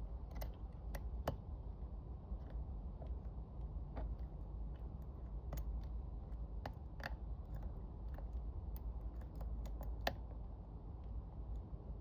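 Lock pick and tension wrench single-pin picking a Spear & Jackson long-shackle padlock: irregular small metallic clicks and ticks as the pins are lifted and set, the sharpest about a second in and again near the end, over a steady low hum.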